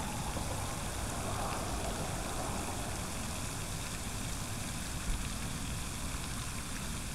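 Steady outdoor rushing noise with a rumble, wind buffeting an open microphone. A single short click comes about five seconds in.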